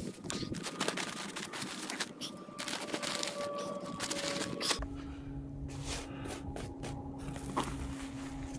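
Sand pouring from a plastic sack into a fabric sandbag, with the sack crinkling and grains hissing and scraping. About halfway through a steady low hum comes in underneath.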